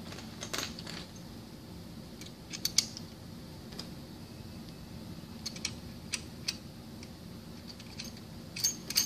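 Metal parts of a pump's mechanical seal clicking and tapping as the seal assembly is slid along the shaft back into its operating position. A few scattered light clicks: two close together about two and a half seconds in, several around six seconds, and a cluster near the end.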